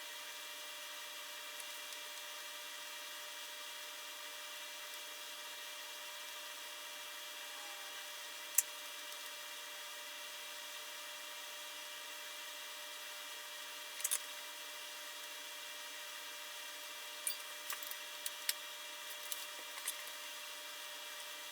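Faint steady hiss and hum of the workbench room, broken by a few sharp small clicks and taps from soldering connector pins on a circuit board. One click comes about a third of the way in, a double one past halfway, and a quick cluster near the end.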